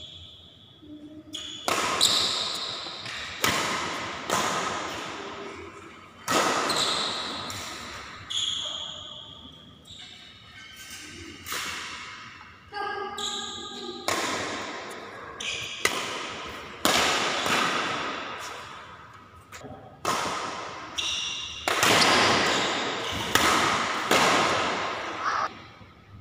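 Badminton rackets striking the shuttlecock in rallies: sharp hits every one to two seconds, each echoing away in a large hall.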